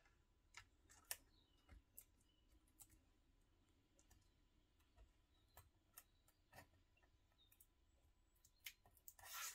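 Faint scattered clicks and taps of metal tweezers and small paper pieces handled on a tabletop while foam adhesive blocks are stuck onto paper die-cuts, with a short rustle near the end.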